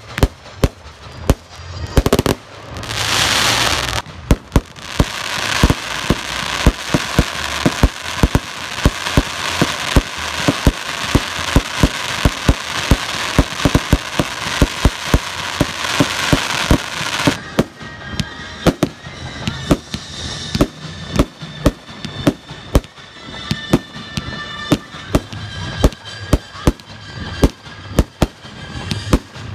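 Fireworks display: a rapid, continuous run of aerial shell bursts, several bangs a second, with a dense crackling hiss that fills the gaps from about four seconds in until the middle, then thins out to separate bangs.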